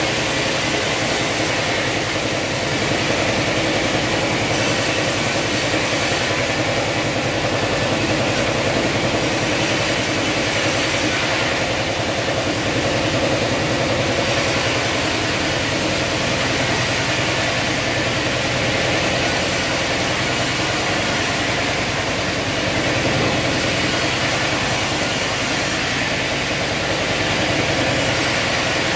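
Vertical band sawmill running, its blade sawing through an old log as it is fed along the table: a loud, steady mechanical din with a hiss that swells and eases every few seconds.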